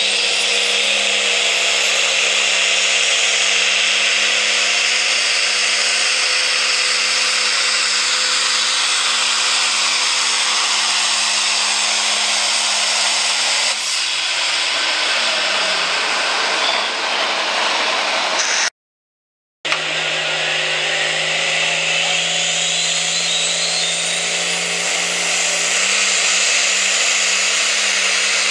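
Turbocharged diesel engine of a limited pro stock pulling tractor running flat out under load down the track, with a high whine rising over it. About halfway through, the engine pitch drops away as the pull ends, then after a brief break another tractor pulls at full power.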